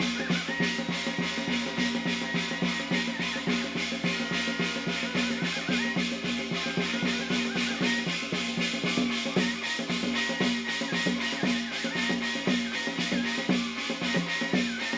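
Fast, driving percussion music of a Hwanghae-do shamanic gut ritual: rapid, evenly spaced drum strokes with a few held tones above them.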